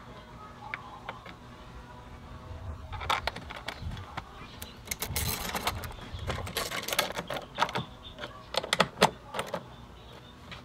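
A 10mm socket on a ratchet extension clinking and clicking against a bolt head as bolts are run in. Scattered metallic clicks begin about three seconds in, become a dense run in the middle, and end with a few sharper single clicks near the end.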